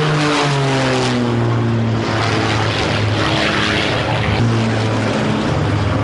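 Propeller aerobatic plane's engine running hard overhead. Its note falls in pitch over the first second or so, then holds fairly steady with small rises and dips.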